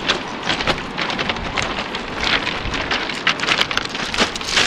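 Footsteps crunching over a shingle bank of beach pebbles, a quick irregular run of grinding crunches as the stones shift underfoot.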